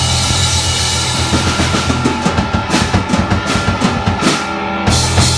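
Live rock band with electric guitar, bass guitar and a Yamaha drum kit, loud: a held chord, then a run of rapid drum strikes for about three seconds, a brief break, and two heavy accented hits near the end.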